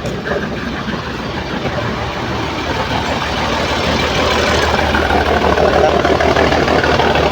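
Large diesel tour-bus engine running, a steady low hum that swells louder about halfway through.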